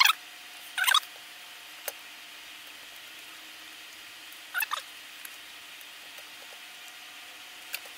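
A few short sizzling crackles from a soldering iron melting flux-cored solder onto wire joints on a tag strip. One comes at the start, another about a second in, and a double one a little past halfway.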